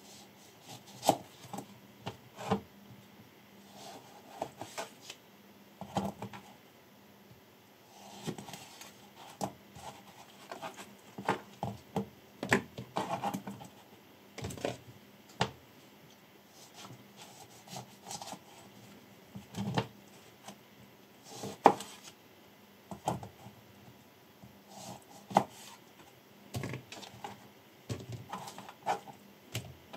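Damascus-steel chef knife cutting lemons on a plastic cutting board: irregular sharp knocks of the blade against the board, with handling of the cut fruit between cuts.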